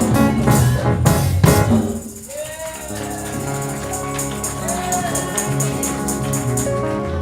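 Live gospel church band: a loud full-band passage with drums and a strong beat, dropping about two seconds in to soft sustained keyboard chords with a light tambourine-like rhythm.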